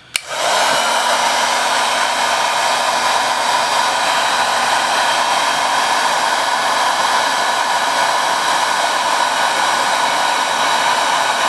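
Electric heat gun switched on and blowing steadily, its fan motor spinning up in the first second. It is heating the cracked camera glass to loosen its adhesive.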